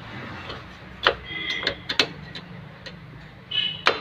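A flat screwdriver clicking and scraping on a drum brake shoe's hold-down spring and retainer cup as it is pressed down and twisted, with short metallic rings from the spring parts. There are a few clicks, with the loudest click and ring near the end.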